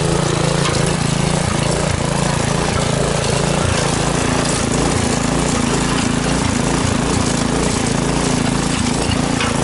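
Small petrol engine of a walk-behind rotary tiller running steadily under load as its tines churn through dry soil.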